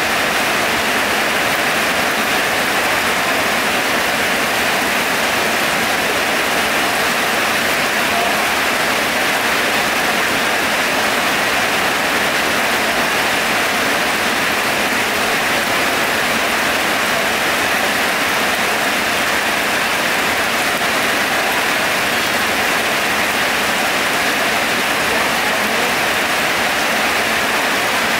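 Heavy rain falling, a loud steady hiss with no let-up.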